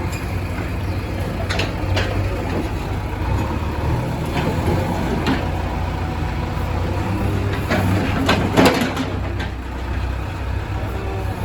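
Heavy diesel engine running steadily, with scattered knocks and a louder clatter about eight to nine seconds in.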